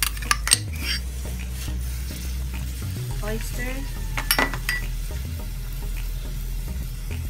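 Pot of soup boiling steadily, a continuous bubbling hiss over a low hum, with a few sharp clicks against the pot near the start and again about four seconds in.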